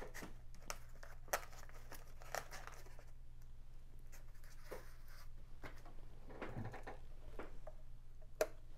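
Scattered clicks and rustling from handling a small foam-board model airplane and plugging in its battery connector, over a faint steady low hum.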